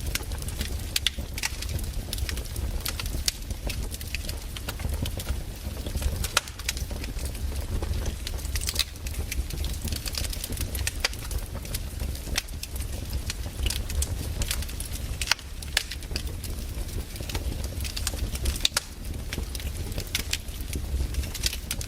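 Wood fire burning: irregular sharp crackles and snaps over a steady low rumble.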